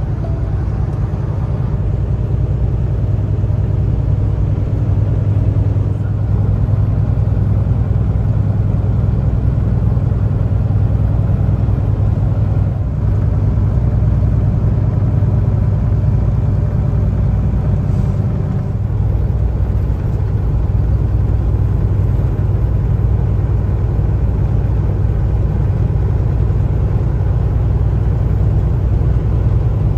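Steady low rumble of a Kenworth T680 semi truck cruising at highway speed, engine and road noise as heard inside the cab.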